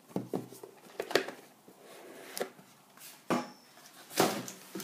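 A cardboard hockey-card box being handled and opened by hand: a scattering of sharp taps and knocks of cardboard, with the loudest knock near the end.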